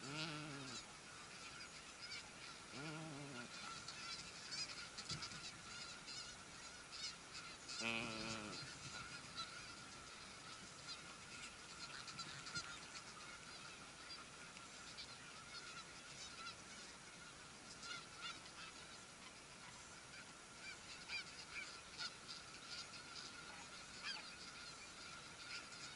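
Snow geese honking: loud calls near the start, about three seconds in, and the loudest about eight seconds in. Many faint, short, high calls from the distant nesting colony run throughout.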